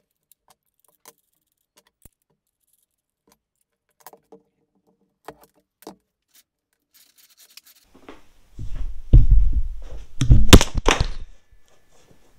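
A few light clicks and clinks of tools being handled on a workbench. About eight seconds in, a run of loud thumps and low rumbling as the camera is knocked and handled, its microphone bumped.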